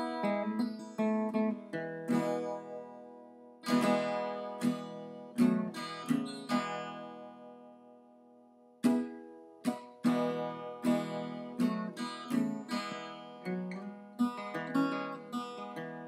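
Background music: acoustic guitar fingerpicking and strumming. A chord rings out and fades about four seconds in, and the playing picks up again near nine seconds.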